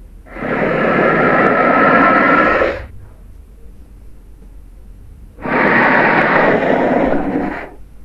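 Fictional Nile monitor lizard sound effect: two long, loud, noisy calls of about two and a half seconds each, a few seconds apart.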